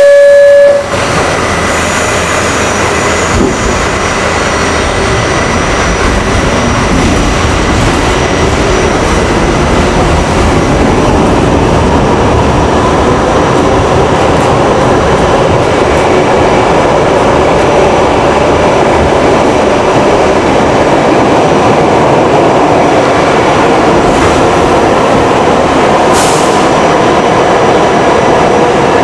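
R68 subway car's loud two-note door chime ends in the first second. The train then pulls away and runs on through the tunnel, a steady rumble and clatter of wheels on rail, with a traction-motor whine that rises in pitch as it gathers speed and a brief hiss near the end.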